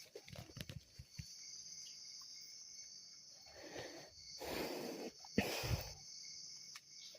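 Steady high insect chorus, with two or three loud breathy noise rushes a little past the middle.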